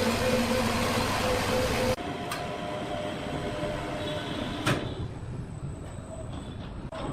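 A machine running with a loud steady hum, cutting off abruptly about two seconds in. Quieter mechanical noise follows, with two sharp knocks, the louder one about four and a half seconds in.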